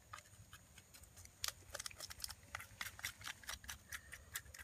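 Knife scraping scales off a freshly caught tilapia: a faint, irregular run of short, crisp scrapes, several a second.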